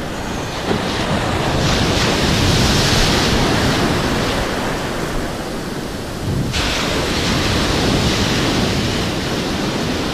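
Caribbean beach surf breaking close by, its foaming white water rushing and hissing, with wind buffeting the microphone. The wash swells, eases and then surges again about two-thirds of the way through.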